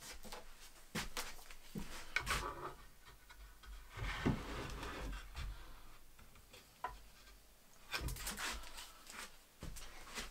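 Light knocks, scrapes and rubbing as an old wooden plank is shifted against the fence of a miter saw and measured and marked with a pencil, with a busier cluster of handling noise near the end.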